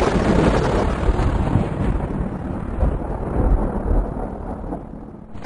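Rolling thunder: one long, deep rumble that starts loud and slowly fades away toward the end.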